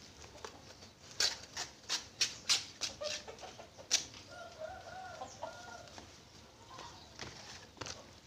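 A quick run of sharp snaps for about three seconds as banana leaves are cut with a sickle. A chicken clucks several times in the middle, and there are a few more snaps near the end.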